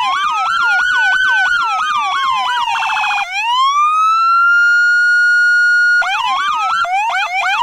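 Police Chevy Tahoe's electronic siren cycling through its tones, loud: a fast yelp of about three sweeps a second over a slower rise and fall, then about three seconds in a wail that climbs and holds steady, then the fast yelp again near the end.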